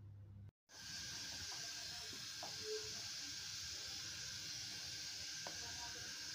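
Steady hiss from a large pot of milk heating on the stove just short of the boil, starting abruptly about half a second in. A light knock of the wooden spoon near the end.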